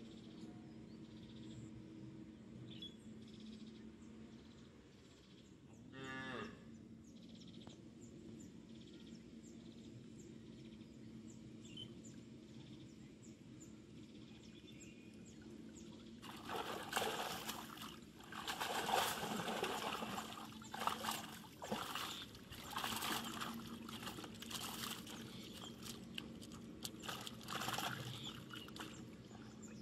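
Water splashing in irregular bursts from about halfway through, as a cast net holding fish is gathered in through shallow pond water. Before that, a low steady hum and one short animal call about six seconds in.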